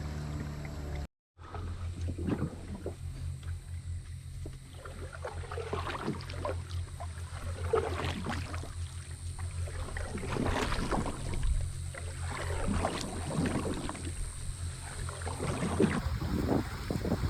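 Tour boat's engine running with a steady low hum under irregular rushing noise from the moving boat. The sound cuts out for a moment about a second in, then carries on.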